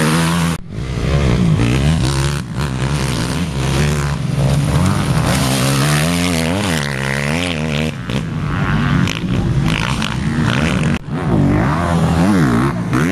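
Enduro motorcycle engines revving as the bikes ride past on a dirt track, the engine pitch rising and falling with the throttle. The sound breaks off abruptly a few times as one passing bike gives way to the next.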